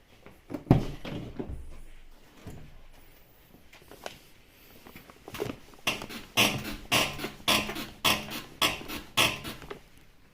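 Squeaking from the rear axle of a BMW F34: after a thump about a second in, a regular run of about seven squeaks, roughly two a second. The uploader puts the squeak down to the rear wheel bearing housing, which has to be replaced.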